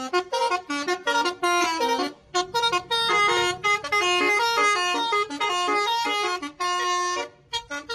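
A bus's telolet air horn, sounded through several horn trumpets, plays a tune of quick stepping notes. The tune breaks off briefly about two seconds in and again near the end.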